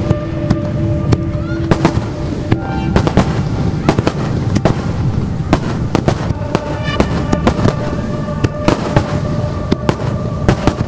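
Aerial fireworks shells bursting in a rapid, irregular string of bangs and crackles, with steady background music underneath.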